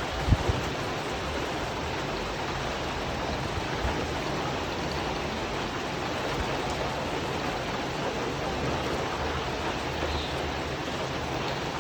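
Steady rain falling on a tin roof, an even hiss with no letting up. A brief low thump stands out about half a second in.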